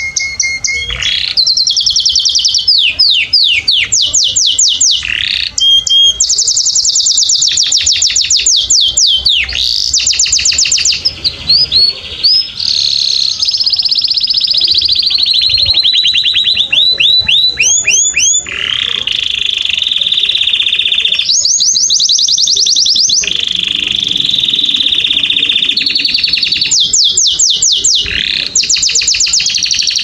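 Canary singing a long continuous song: fast trills of quickly repeated sweeping notes alternating with long, steady high rolls.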